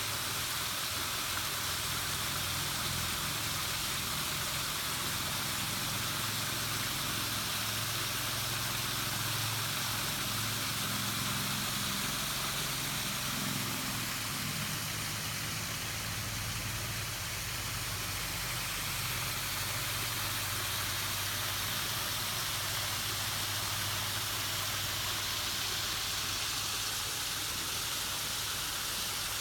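Steady rushing hiss of falling water from a small waterfall and creek, with a low steady hum underneath, strongest through the middle.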